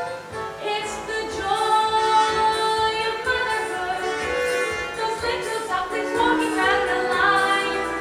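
A girl's voice singing a musical-theatre song solo, holding long notes over an instrumental accompaniment.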